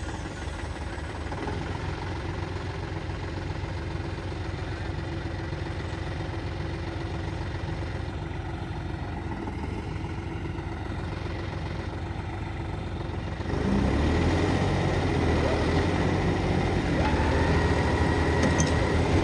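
Diesel engine of a 4x4 farm tractor running steadily, then revving up and getting louder about two-thirds of the way through.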